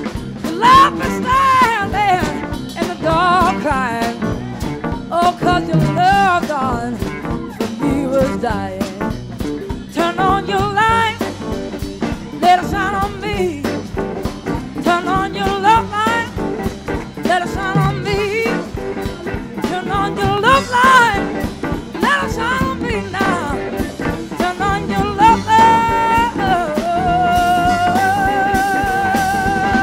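Live blues-rock band recording: a lead electric guitar solos over bass and drums in gliding, wavering lines, and settles into a long held note with vibrato near the end.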